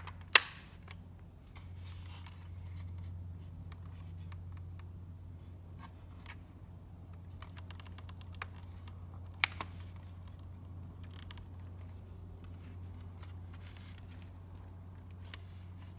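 Plastic clicks and snaps from a Porsche Boxster instrument cluster's housing and clips being handled and worked by hand, with a sharp snap about half a second in and another about nine and a half seconds in. A steady low hum runs underneath.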